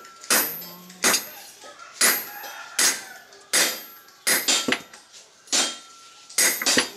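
Hand hammer striking a steel knife blade on a small anvil block: about ten metallic blows at roughly one a second, each ringing briefly.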